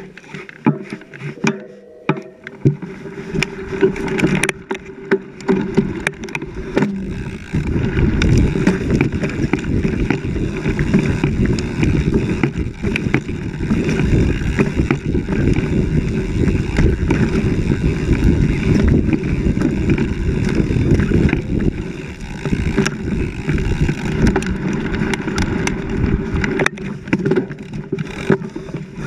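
Mountain bike riding hard down a rough dirt trail, heard from a handlebar-mounted camera: a steady rumble and rattle of tyres and bike over roots and ruts, with many sharp knocks from hits. It is lighter and broken at first and becomes loud and continuous about seven seconds in.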